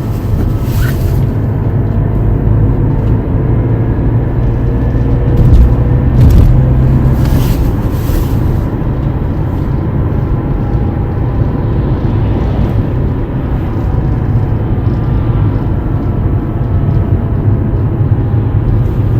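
A 2011 BMW F10 driving: steady heavy road rumble with a faint whine whose pitch slowly rises and falls, a whine the owner suspects comes from the differential. A few thumps come near the middle.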